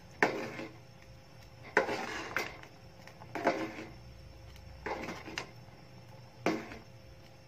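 A metal spoon scraping and knocking against a metal saucepan while stirring macaroni in a thick milk sauce, in short strokes about once a second.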